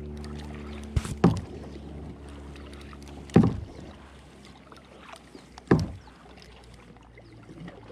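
Kayak paddle strokes: three sharp splashes of the paddle blade dipping into the water, about two seconds apart, the first a double hit.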